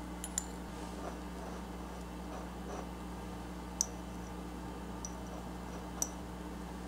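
A few small, sharp clinks of a miniature kitchen knife touching a small porcelain plate as it cuts into a stuffed cabbage, with faint soft sounds between them, over a steady low hum.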